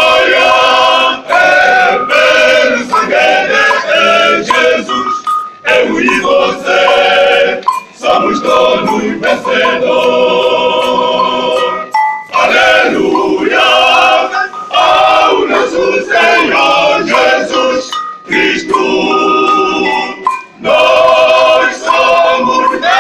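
Men's choir singing a hymn, in loud sung phrases broken by short pauses for breath.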